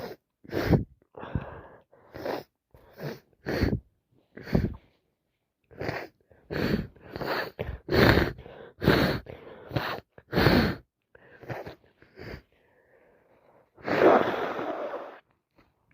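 A woman with a head cold sneezing in a long fit: more than a dozen short, wet sneezes in quick succession, then a longer breathy sound near the end.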